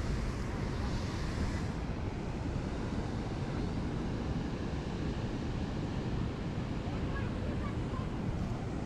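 Steady rushing noise of wind buffeting the microphone, over the rush of river water pouring through the gates of a weir.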